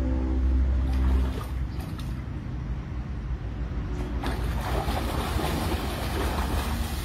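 A Belgian Malinois splashing through a shallow pool, the water sloshing and spraying hardest from about four seconds in. A low rumble sits underneath, strongest in the first second.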